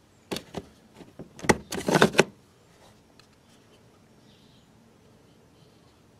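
Plastic trim cover over a Toyota Yaris's rear wheel arch being unclipped and pulled away: a few sharp clicks, then a denser cluster of louder plastic clicks and scrapes about two seconds in.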